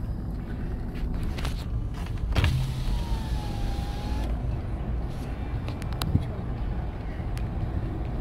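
Car driving on a dirt road, heard from inside the cabin: a steady low rumble of engine and tyres. From about two and a half seconds in, the electric side window runs down with a thin whine, stopping a little over four seconds in.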